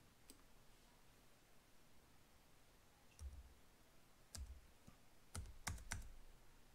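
Faint typing on a computer keyboard: after about three seconds of near silence, a handful of separate key clicks as a device serial number is entered.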